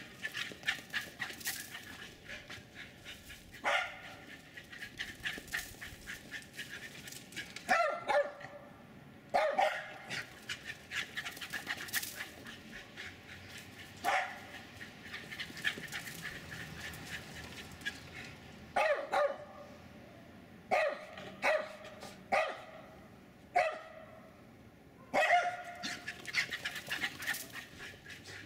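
Jack Russell Terrier barking over and over while running: loud, sharp barks every few seconds, some single and some in quick runs of two or three, with fainter crackling between the barks.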